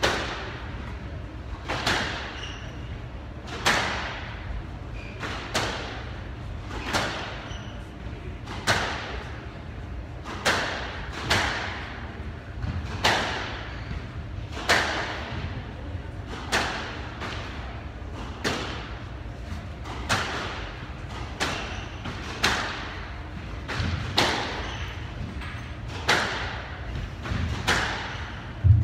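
Squash ball being struck, sharp cracks with a ringing echo in the glass-walled court, repeating about every one to two seconds. A heavier, deeper thud comes at the very end.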